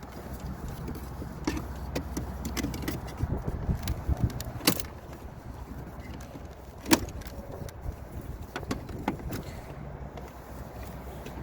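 Scattered sharp plastic clicks and knocks from hands working at a car door panel, unplugging its wiring connectors, over a low steady background rumble. The two loudest clicks come about 4.7 s and 7 s in.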